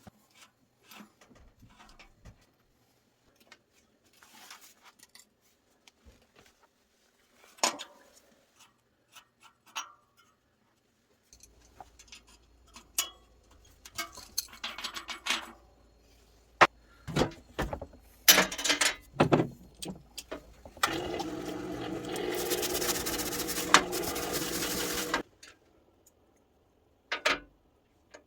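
Intermittent clinks and knocks of metal tools and bicycle parts being handled on a workbench. About two-thirds of the way in, a steady machine whir starts and runs for about four seconds, then stops suddenly.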